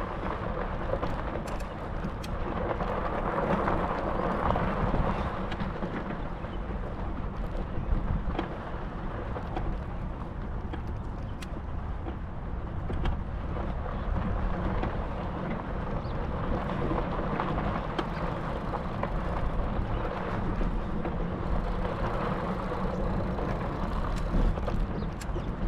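Steady running noise of a ride along a rough valley track: a low rumble with a faint hum, wind on the microphone and scattered clicks and rattles.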